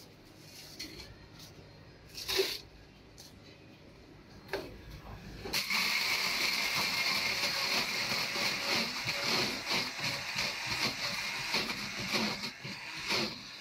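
A couple of knocks, then about five and a half seconds in a high-speed countertop blender switches on and runs steadily, crushing ice with syrup into a slushie.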